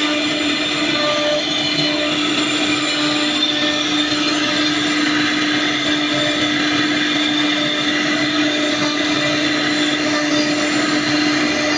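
CNC wood router running steadily, with one constant hum over an even noise that does not change.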